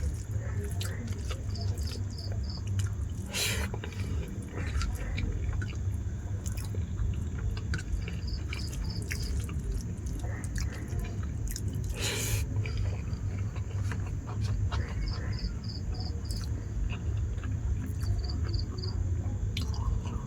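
A person chewing and eating rice with dal and fried pumpkin, with small mouth clicks and two louder brief sounds, about three and twelve seconds in. Over it, a cricket chirps in short groups of four or five pulses, and a steady low hum runs underneath.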